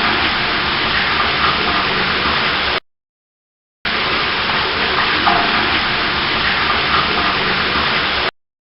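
Steady rushing roar of a waterfall. It cuts off abruptly about three seconds in, and after a second of dead silence the same rush starts again and runs for about four and a half seconds before cutting off.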